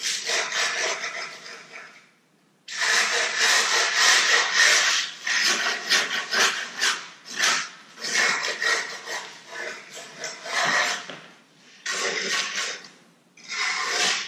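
Scooter grip tape being scraped and cut along the deck edge with a utility knife: a rough, rasping noise in long strokes with short pauses, including one gap about two seconds in.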